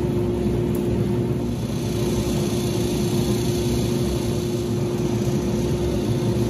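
Workshop machine motor running steadily: a constant hum with one held tone over a low rumble, with no change in load.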